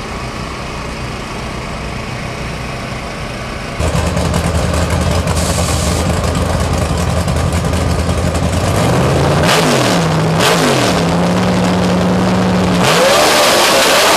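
Supercharged Pro Mod drag car's V8 idling with a loud, steady rumble, starting suddenly about four seconds in after a quieter stretch. The throttle is blipped twice, quick up-and-down revs, then the engine holds a higher idle and revs up hard near the end.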